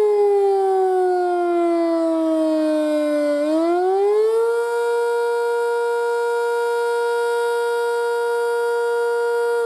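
Sentry 5V electromechanical warning siren sounding a wail: its tone falls for about three seconds, climbs back up in about a second, holds steady for about five seconds, then starts to fall again near the end. The rise-and-fall cycle is the attack signal of a siren test.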